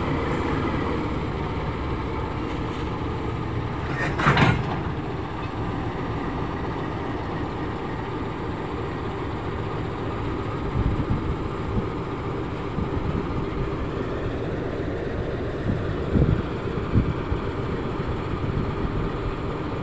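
CC206 diesel-electric locomotive's engine running steadily as it moves slowly up to a string of flat wagons. A short loud burst about four seconds in, and a few low thuds later on.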